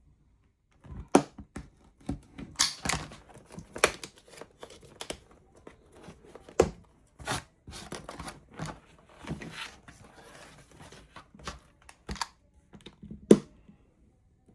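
Irregular clicks, taps and short scraping sounds of hand craft work: a craft knife and other tools picked up, set down and drawn along the sign board. One sharper knock comes near the end.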